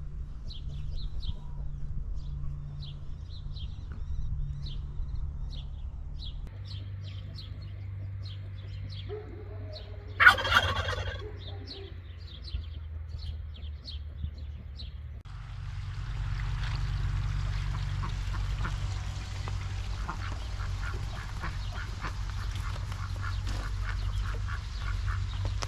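Farm poultry calling: a run of short high chirps, then one loud rattling turkey gobble about ten seconds in, followed by a busy stretch of many overlapping small bird calls over a steady low hum.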